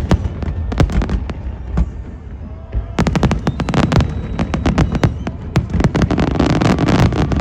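Fireworks bursting in a rapid run of sharp bangs and crackles, growing much denser about three seconds in.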